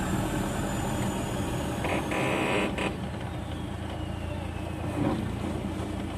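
Vehicle engine and road noise heard from inside the cabin while driving, a steady low hum, with a brief higher rasp about two seconds in.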